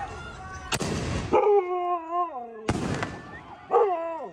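Dog howling in two long calls that slide down in pitch, while fireworks go off with two sharp bangs, each trailing off in a crackling hiss.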